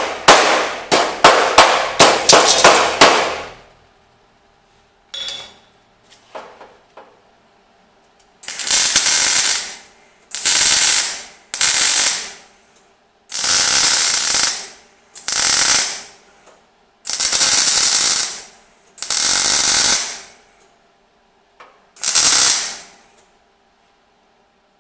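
A quick run of hammer blows on sheet steel for the first three seconds, then a welder laying eight separate tack welds on the steel repair panel, each about a second long with short pauses between.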